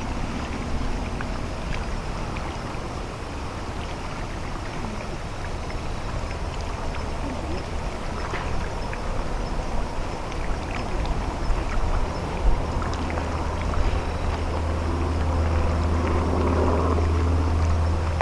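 Engine of the underwater disposal mother ship YDT-01 running as the vessel comes in to berth: a steady low rumble that grows louder over the last few seconds.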